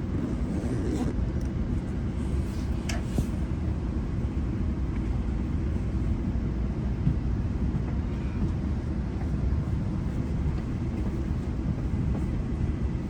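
GO Transit commuter train running between stations, heard from inside the coach: a steady low rumble of wheels on the rails. A couple of faint high squeaks come in the first few seconds.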